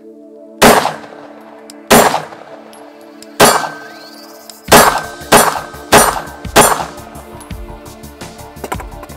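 Seven 9mm shots from a Glock 19 pistol with a stainless drop-in barrel, fired with mixed ammunition. The first shots come about a second and a half apart, then three follow in quicker succession, each with a short ringing tail.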